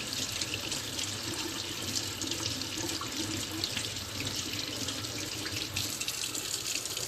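Tap water running steadily into a sink while a vacuum cleaner's circuit board is washed under it with dish detergent.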